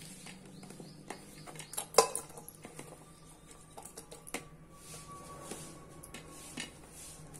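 Chopped bottle gourd pieces being pushed off a steel plate into a pressure cooker, giving scattered light clinks and knocks of metal on metal. One sharper clank about two seconds in leaves a faint metallic ring for a few seconds.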